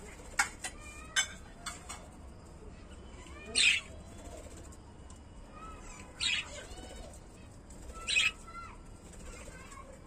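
Budgerigars giving short, sharp chirps and squawks, about half a dozen spread out, the loudest about three and a half seconds in.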